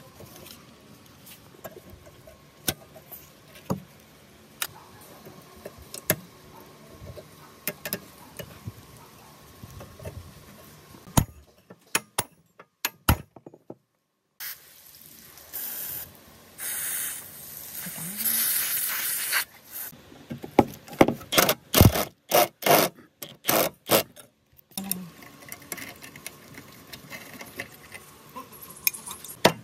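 Hand tools on the metal parts of a rusty cut-off saw being taken apart: scattered light metal clicks and clinks, a few seconds of scraping midway, then a quick run of sharp metal knocks.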